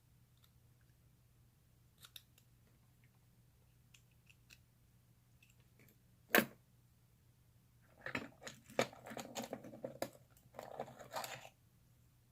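Paclock 150 brass padlock being locked up with its key: a few faint clicks, one sharp metallic click about six seconds in, then several seconds of quick clicking and rattling near the end.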